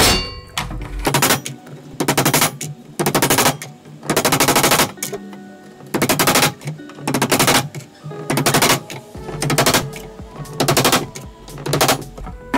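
Hammer driving glued wooden dowels into their holes: about a dozen bursts of rapid knocking, roughly one a second, over background music.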